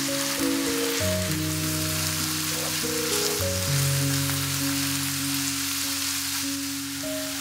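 Diced red onions sizzling steadily as they fry in oil in a pan, with soft background music of slow, sustained notes.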